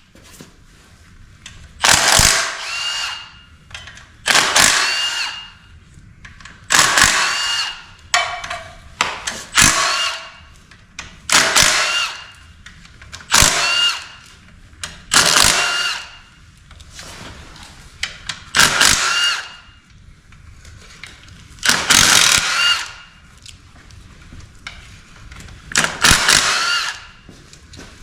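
Power tool run in about a dozen short bursts, each lasting about a second and a couple of seconds apart, with a steady whine in each burst.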